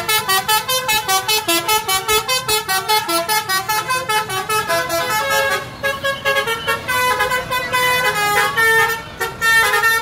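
Tour bus 'basuri' melody horns playing a fast multi-note tune, about five short notes a second, loud and shrill, with brief breaks about six and nine seconds in.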